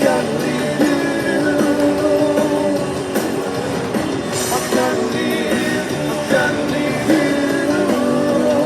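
Rock music with a singing voice and electric guitar.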